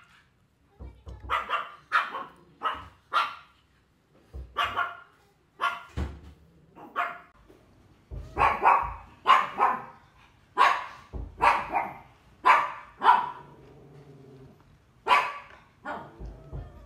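A dog barking over and over, in quick runs of short barks about two a second with brief pauses between runs.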